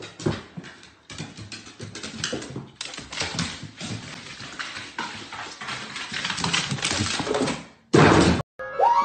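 A dog scrambling on hardwood stairs: rapid, irregular clatter and knocks of claws and paws, getting louder toward the end. A loud noisy burst comes about 8 seconds in.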